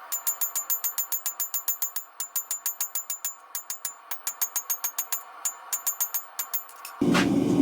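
Power hammer striking hot steel in a fast, even rhythm of about seven blows a second, each blow with a high metallic ring, broken by a few brief pauses. Near the end the blows stop and a loud, steady rushing noise cuts in.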